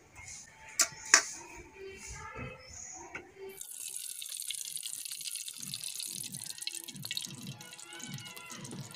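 Two sharp knocks about a second in. Then, from about three and a half seconds, a steady pouring hiss as cooking oil runs in a stream from a bottle into a large iron karahi.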